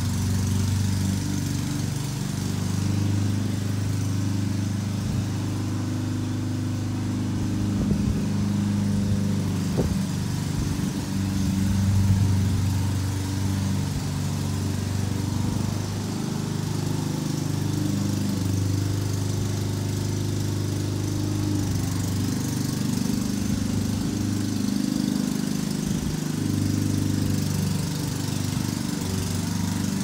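Lawn mower engine running steadily, its pitch shifting a little now and then.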